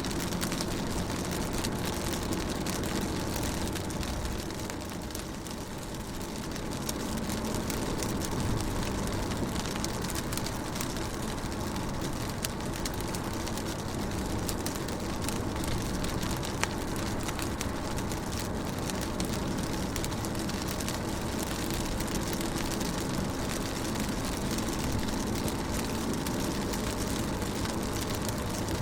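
Steady rain on a window pane, an even hiss of drops with a low rumble underneath and an occasional sharper tick.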